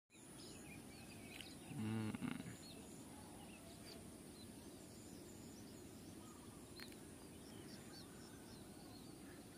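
Quiet rural outdoor ambience: faint scattered bird chirps over a steady high-pitched hum, with one short low voice-like sound about two seconds in.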